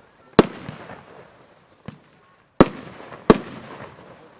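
Röder 'Let's Fetz' 146-shot compound firework cake firing: three sharp, loud bangs of bursting shots, one early and two close together near the end, with a fainter bang between them, each trailing off in a fading tail.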